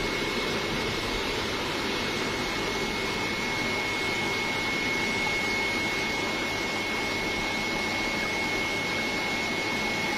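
Steady hiss of aquarium aeration and filtration, air and water rushing at a constant level, with a thin, high steady whine running through it.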